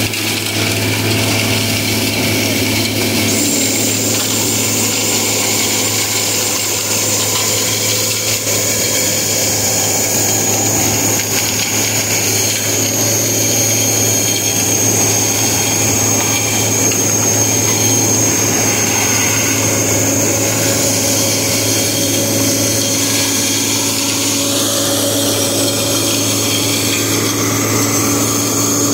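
Vacuum excavation truck running steadily: a loud constant machine drone with a high whine that comes in a few seconds in.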